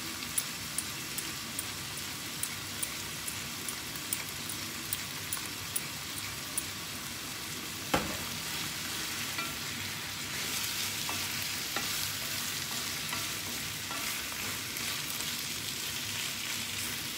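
Roast chicken pieces frying in a nonstick pan, sizzling steadily while a wooden spatula stirs them. There is a single knock about eight seconds in, and the sizzle grows louder from about ten seconds in.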